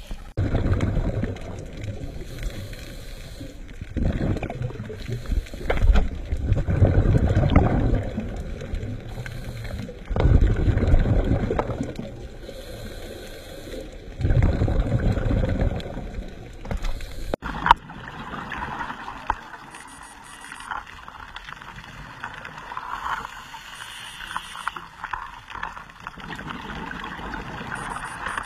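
Scuba regulator breathing recorded underwater: rumbling bursts of exhaled bubbles about every four seconds, each lasting a second or two. After about 17 seconds the bursts give way to a quieter, steady underwater crackle.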